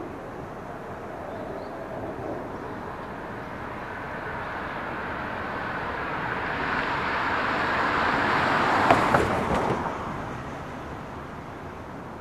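A car driving past on the road: its tyre and engine noise builds as it approaches, is loudest about nine seconds in with a few brief knocks, then falls away quickly.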